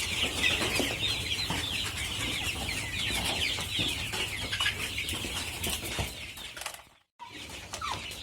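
A flock of chickens chirping and clucking continuously, many short falling calls overlapping, over a steady low hum. The sound cuts out briefly about seven seconds in, then resumes.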